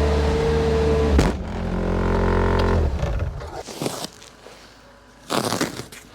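Tractor engine running steadily, with a sharp clunk about a second in, then winding down and stopping about three seconds in. A few footsteps follow.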